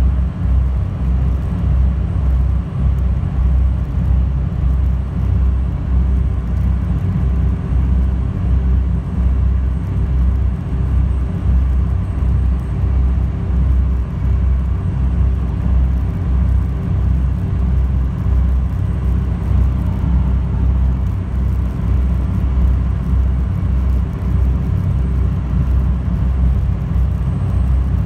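High-speed passenger boat's engines running at cruising speed, heard inside the cabin: a loud, steady low drone that pulses slightly, with a faint steady hum above it.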